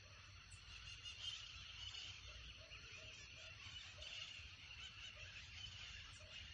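Faint lakeside wildlife chorus: a steady high chirring of birds and other animals, with a short low call repeated about two or three times a second from about two seconds in.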